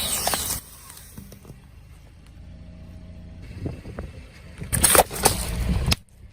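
Car tyre crushing crunchy objects: a loud crunching crackle dies away in the first half second and returns about five seconds in, then stops abruptly. Between the two, the car's engine and tyres rumble low and steady.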